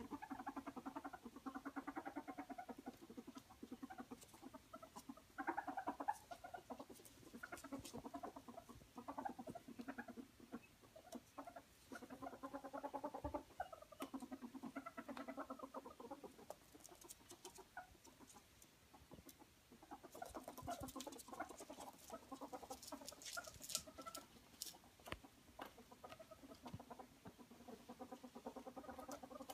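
Ferrets dooking: bursts of rapid, soft clucking chatter, the sound ferrets make when excited at play. Light clicks and scratches join in from about twenty seconds in.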